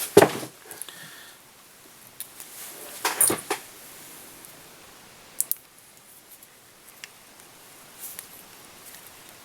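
Quiet rustling and scratching from handling fly-tying materials at the vise, as a hackle feather is taken from a cock cape and tied in, with a short louder rustle about three seconds in and a few sharp clicks.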